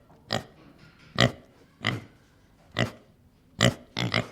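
Domestic pig grunting: a series of short grunts, about one a second, coming closer together near the end.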